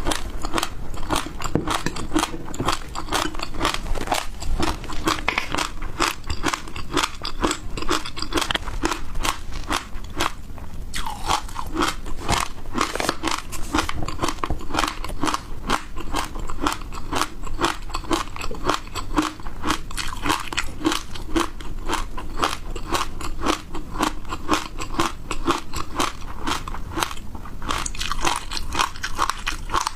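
Close-miked chewing and biting of crunchy frozen food, a continuous stream of crisp crunches in quick succession.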